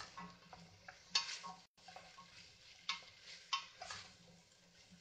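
Wooden spoon stirring diced sweet potato in a stainless steel pan: about five separate scrapes against the pan, spaced irregularly, over a faint sizzle.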